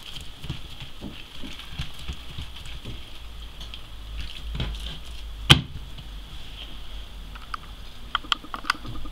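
Hands pressing and patting a ball of soft msemen dough flat on a worktop: soft, dull irregular pats, with one sharp knock about five and a half seconds in and a few light clicks near the end.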